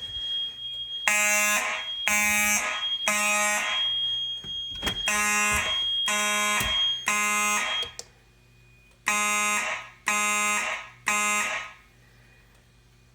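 Fire alarm horn sounding in the three-pulse temporal pattern: three buzzy blasts about a second apart, a pause, then repeating, three groups in all. A steady high-pitched electronic tone runs underneath and stops about eight seconds in. The horn cuts off just before the end as the audible circuit is silenced at the panel.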